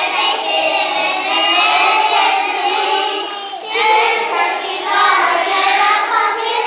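A group of young children singing together, with a short break about three and a half seconds in.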